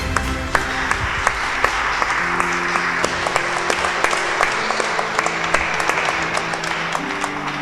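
Audience applauding steadily, with soft background music of sustained notes underneath that shift a couple of times.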